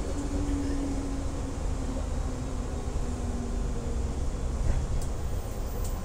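205-series electric train running along the track, heard from inside its rear cab: a steady low rumble of wheels on rail, with a faint tone that slides gradually lower in pitch and a single click about four and a half seconds in.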